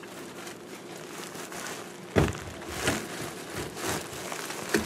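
Rustling and scraping while working at the drain pipes under a kitchen sink. A sharp knock about two seconds in is the loudest sound, followed by several smaller, irregular clunks and clicks.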